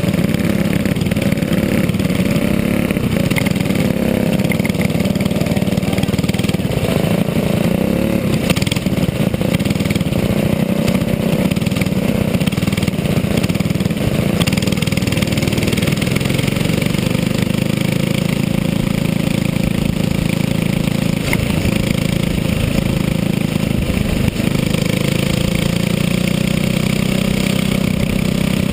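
Go-kart engine running hard, heard from on board the kart, its pitch rising and falling as the driver accelerates and lifts for the corners.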